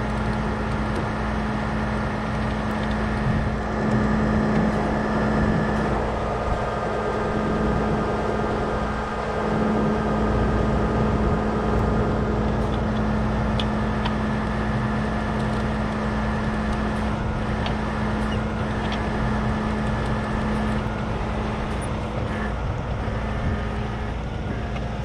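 Tow truck's diesel engine running steadily with a constant hum while its winch reels in the line, pulling a pickup out of a ditch. The hum drops away a few seconds before the end.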